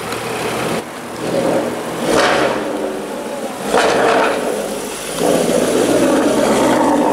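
Jaguar F-Type R's supercharged V8 through a decatted Capristo exhaust, revved in two short blips and then held at higher revs for about two seconds near the end.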